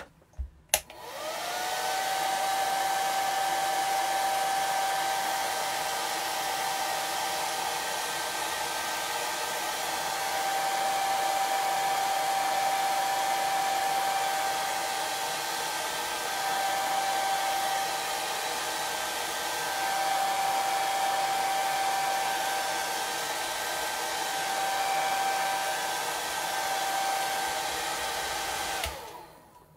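Handheld hair dryer switched on with a click, its motor whine rising quickly to a steady pitch over an even rush of air. It runs for nearly half a minute, swelling and easing slightly as it is moved over the piece, then is switched off near the end.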